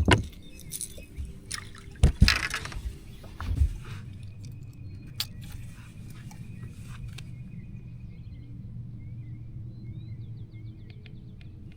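Knocks and rattles from handling a bass and weighing it on a boat, loudest in the first few seconds. A steady low hum with a faint water trickle follows, and faint high chirps repeat near the end.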